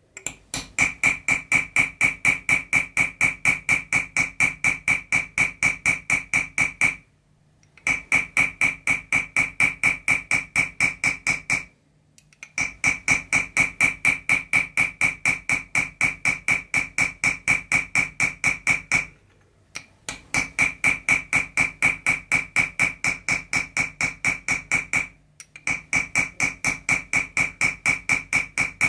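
Chasing hammer tapping a steel chasing tool on 0.6 mm copper sheet set in chaser's pitch: rapid, even strikes, about five a second, each with a high metallic ring. The tapping stops for a moment four times as the tool is moved to a new spot.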